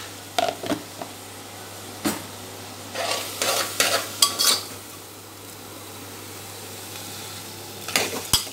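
A steel spoon scraping and clinking against the inside of an aluminium pressure cooker as frying vegetables and pigeon peas are stirred, over a faint steady sizzle. The scraping comes in short bursts, the busiest about 3 to 4.5 seconds in and again near the end.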